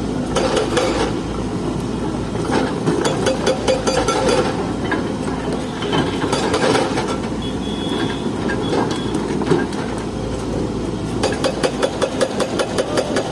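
Machinery running with a steady low rumble, broken by runs of rapid clicking near the start, a few seconds in, and again near the end.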